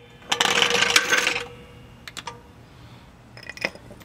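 Rapid metallic clicking for about a second, then a few light metal clinks, from hand tools working on a car's front suspension.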